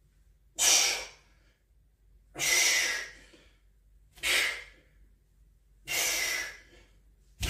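A man breathing hard in four strong, airy breaths, about one every two seconds, with near silence between them: effort breathing during an abdominal exercise.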